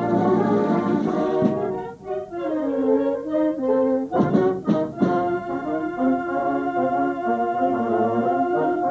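Concert wind band playing sustained, slowly moving chords, with a few sharp percussion strikes about four to five seconds in.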